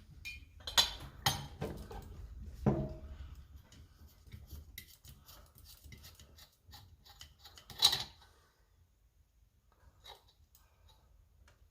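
Small metal parts and tools clinking and knocking as a Coleman 530 G.I. pocket stove is taken apart by hand. There are several sharp clicks in the first few seconds and a loud knock near eight seconds, then only a few faint clicks.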